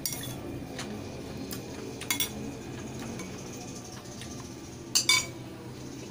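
A wooden spoon knocking and scraping against a ceramic bowl while scooping rice: short sharp clinks, the loudest a pair about two seconds in and another pair about five seconds in, over a steady low background noise.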